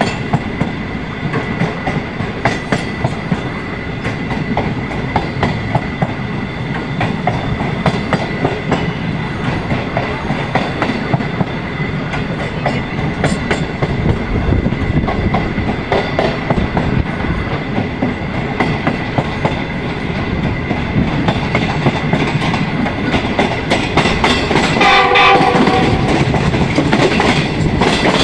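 Passenger train running at speed, heard from an open coach window: a steady rumble with wheels clicking over rail joints and rushing air. About three-quarters of the way through, a train horn sounds once for a second or two.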